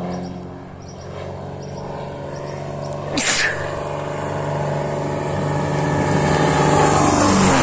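Cessna 188 crop-spraying plane's piston engine and propeller droning on a low pass, growing louder as it approaches, then dropping in pitch as it goes over near the end. A brief rush of noise comes about three seconds in.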